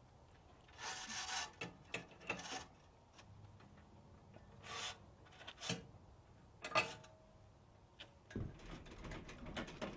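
Scattered short metal scrapes, clicks and clinks of a boat trailer hitch being hooked up: the coupler latch locked and pinned, the light plug connected and the safety cables attached.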